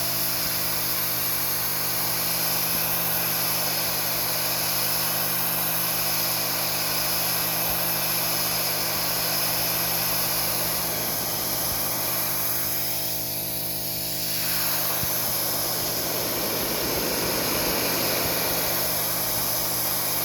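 RYOBI 2000 psi electric pressure washer running steadily: the motor-driven pump hums while the water jet from the yellow nozzle tip hisses against concrete. The tone shifts briefly about two-thirds of the way through.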